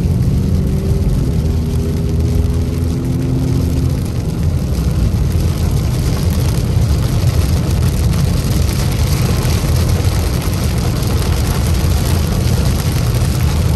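Inside a car driving through heavy rain on a wet road: a steady low rumble of engine and tyres, with a hiss of rain and spray that grows louder about halfway through.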